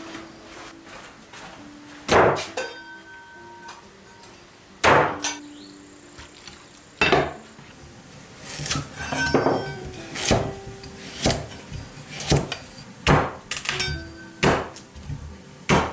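Sharp strikes of kitchen utensils, three spaced a few seconds apart and then quicker, about one a second, in the second half. Soft background music runs underneath.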